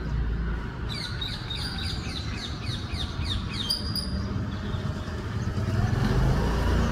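A songbird calling a quick series of descending chirps, about three a second, for a few seconds, then a single higher note, over a steady low rumble.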